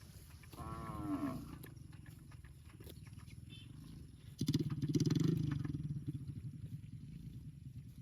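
Cows mooing: a short call falling in pitch about a second in, then a louder, lower moo lasting about a second and a half around the middle. A steady low hum runs underneath.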